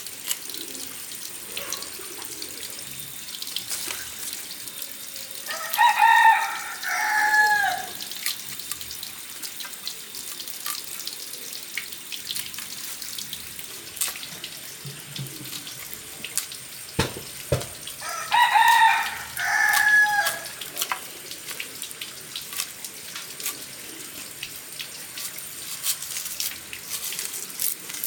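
A rooster crows twice, first about six seconds in and again about eighteen seconds in, each crow lasting about two seconds. Underneath, water runs steadily from a tap, with scattered clinks.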